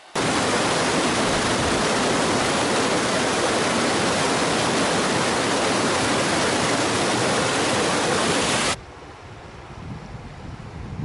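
Whitewater rapids rushing over rocks in a loud, steady torrent. It starts suddenly and cuts off suddenly near the end, leaving a much fainter hiss.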